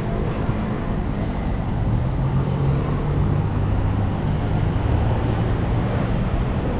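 A motor vehicle's engine hums steadily, low in pitch, over a constant wash of outdoor street noise. The engine note shifts slightly about halfway through.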